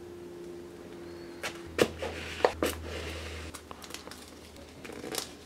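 A small knife slitting the seal on a smartphone box, with several sharp clicks and taps and a short scraping rustle as the blade and the box lid are worked, and one more click near the end.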